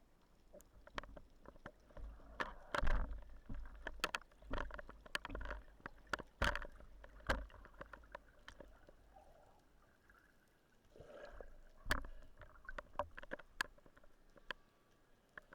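Underwater sound of a freedive: many irregular sharp clicks and crackles over low, muffled thumps of water movement.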